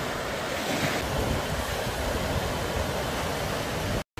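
Sea waves breaking and washing over shoreline rocks: a steady rushing surf that swells slightly about a second in and cuts off abruptly near the end.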